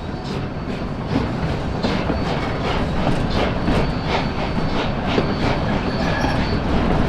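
A narrow-gauge train rolling behind the D&RGW 491 steam locomotive, heard from a car in the train: steady running rumble with a regular beat about two and a half times a second.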